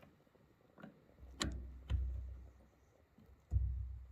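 Chainsaw being handled while its chain tension is tightened: a faint tick, then two sharp clicks about half a second apart around a second and a half in, and a low thump near the end.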